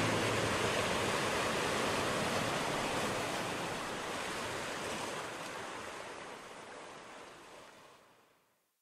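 A steady rushing noise with no pitch or beat, fading out gradually to silence about eight seconds in.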